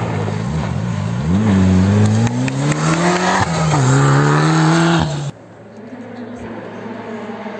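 Mitsubishi Lancer Evolution rally car's turbocharged four-cylinder engine accelerating hard on gravel, pitch rising, with one gear change about three and a half seconds in. Just after five seconds it cuts off abruptly, leaving a much quieter, distant engine hum.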